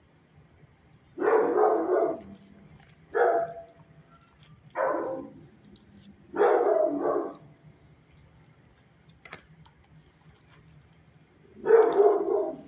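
A dog barking: five barks with uneven gaps and a long pause before the last, which is the loudest.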